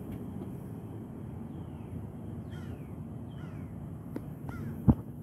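A crow cawing three or four times in short, falling calls over a steady low outdoor hum. A single sharp click near the end.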